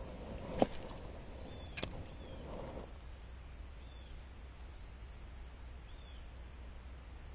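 Two sharp clicks about a second apart from a spinning rod and reel being cast, with light rustling of the tackle, then a steady high insect drone.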